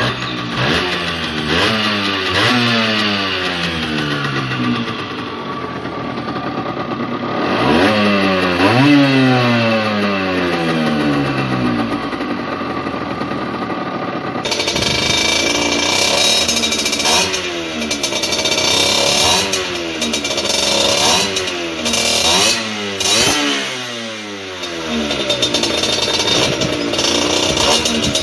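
Small motorcycle-type engine revved repeatedly through its exhaust, the pitch rising and falling with each rev. About halfway through the sound cuts abruptly to a brighter, harsher exhaust note with shorter, quicker revs: the stock exhaust compared with an aftermarket one.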